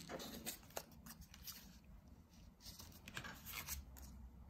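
Faint, irregular rustling and rubbing of paper as hands press glued paper ears onto a paper head and pick it up.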